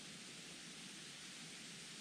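Wind blowing steadily across an exposed mountain ridge: a faint, even rushing hiss.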